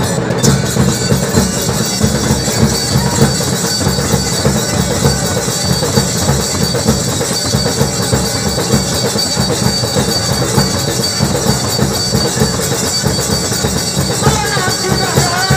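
Loud, rapid, unbroken drumming in live devotional folk music, with a thin high steady tone above it; a voice comes in singing near the end.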